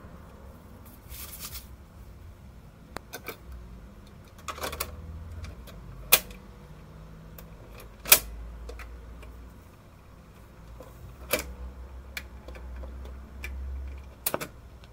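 A 45 rpm single being loaded onto a Fidelity HF 43 record player: a brief rustle of the paper sleeve about a second in, then a string of sharp clicks and knocks as the record goes onto the spindle and the changer control is worked, over a low rumble.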